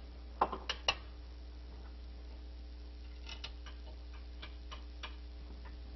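Three sharp clicks about half a second in, then faint, irregular ticks and light taps over a low steady hum.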